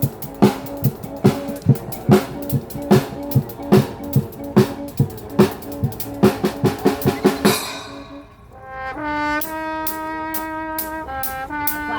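Brass band with drums rehearsing: a steady drum-kit beat for the first seven seconds or so. It breaks off, and a second later the horns, trombones among them, come in with long held chords over a light ticking beat.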